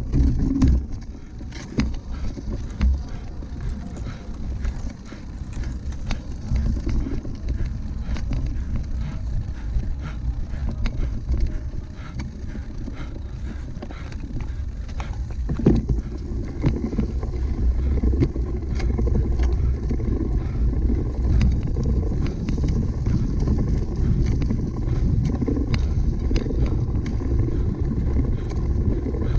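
Cyclocross bike being ridden hard over rough ground: a steady low rumble with many sharp rattling clicks from the bike, growing louder about halfway through.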